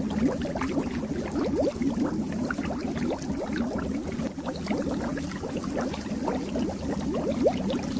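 Aquarium water bubbling: a steady, dense stream of small bubbles gurgling and popping in a fish tank.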